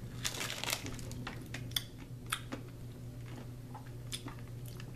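Small hard candies being sucked and rolled in the mouth, clicking against the teeth: scattered sharp little clicks, a quick cluster just after the start and single ones after that.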